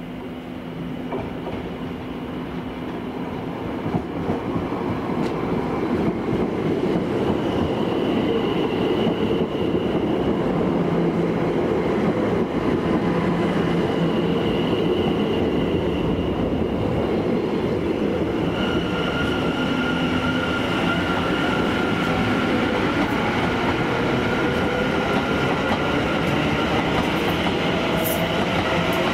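Electric multiple-unit passenger train running on the line, growing louder over the first several seconds and then holding a steady rumble. High, steady whining tones come in about a quarter of the way through and again past the middle.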